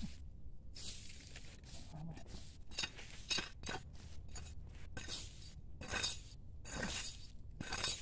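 Machete scraping and chopping into dry sandy soil, a quick, irregular series of gritty strokes.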